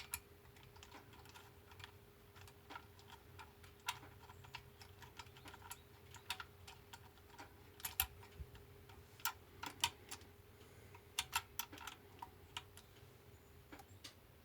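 Scattered light clicks and taps from hand tools and small chainsaw parts being handled, irregular and unevenly spaced, over a faint steady hum.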